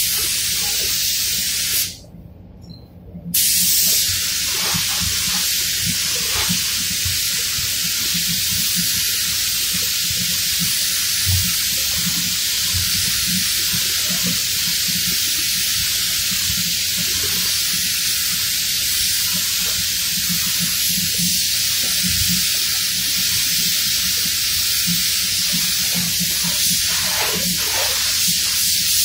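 Gravity-feed spray gun hissing steadily as clear coat is sprayed onto car body panels. It stops about two seconds in, then comes back after a second or so and runs on without a break, over a low hum.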